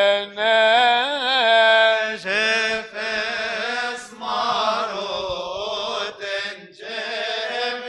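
Coptic liturgical chant by male voices, sung without instruments. It opens with a long, wavering melismatic phrase from a single voice. About two seconds in, a new phrase begins with a fuller sound: the call 'Shlil' ('Pray').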